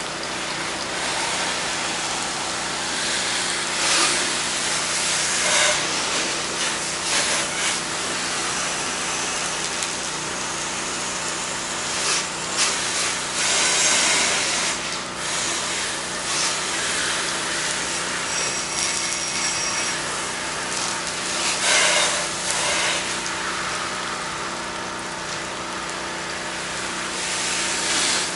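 Pressure washer running steadily with a low hum, with the hiss of its wand spraying a soft-wash bleach solution through the low-pressure black tip. The spray hiss swells and fades as the wand is swept and triggered.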